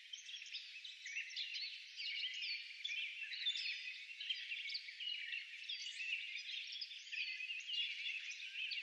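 Dense chorus of many overlapping high-pitched chirps and short whistling calls, with nothing low-pitched underneath.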